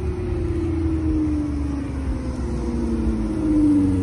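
Eighth-generation Toyota Camry driving slowly by, its exhaust drone sliding slowly down in pitch over a low rumble and growing louder near the end as the car comes close.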